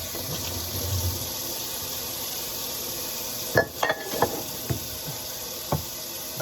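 Water running steadily into a sink during hand dishwashing, with a quick cluster of clinks from dishes and cutlery a little past halfway, one ringing briefly, and two more light knocks later.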